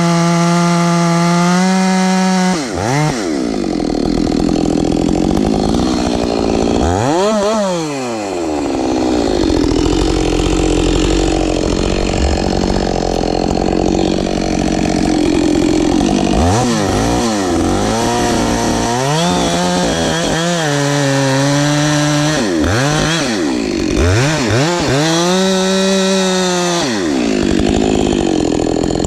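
Ported Husqvarna 572XP two-stroke chainsaw cutting wood at full throttle. The engine pitch sags under load and climbs back again and again, with a steadier, lower-pitched stretch of continuous cutting in the middle.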